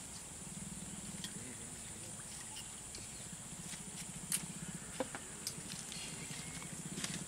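A steady high-pitched insect drone and a low steady hum, with a few light clicks and taps from dart syringes and kit being handled.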